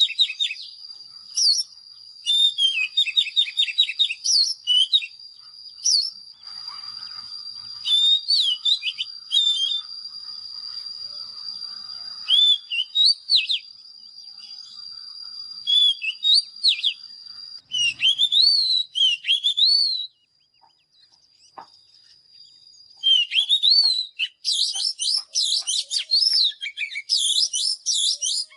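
Oriental magpie-robin singing loud, varied whistled phrases of rising and falling notes, with a steady high whistle-like tone held underneath for the first two-thirds. The song pauses briefly about two-thirds of the way in, then resumes in a fast, dense run of notes.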